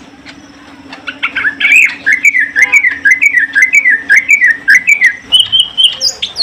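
Greater green leafbird (cucak ijo) singing: a fast run of repeated rising-and-falling whistled notes, about two a second, mixed with sharp high chips, climbing to higher notes near the end.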